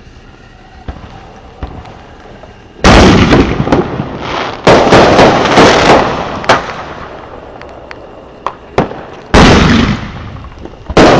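Consumer fireworks going off: after a quiet start, a loud blast about three seconds in, then more blasts and sharp single cracks, with big ones again near the end.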